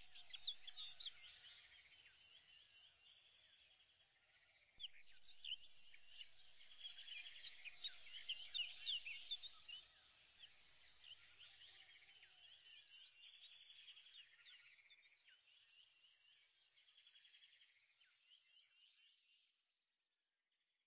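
Faint chorus of birds: many short chirps and quick trills overlapping, dying away near the end.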